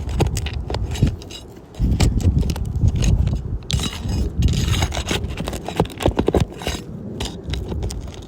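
Metal roofing tool clinking and scraping against asphalt shingles as a damaged shingle is worked loose, with many sharp clicks over a low rumble.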